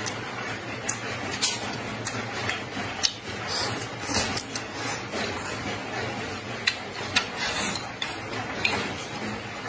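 A person eating close to the microphone, chewing and slurping food with many sharp, irregular clicks and smacks over a steady hiss.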